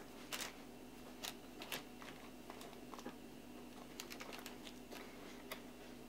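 Faint, irregular light clicks and ticks of a small screwdriver and screws as a metal shield is screwed down onto a motherboard, with a short run of quick clicks about four seconds in.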